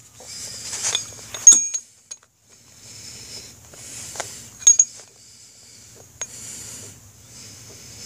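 Used motorcycle brake pads handled in the hands: a soft rustle broken by a few small, sharp clicks and clinks as the pads tap together, the loudest about a second and a half in.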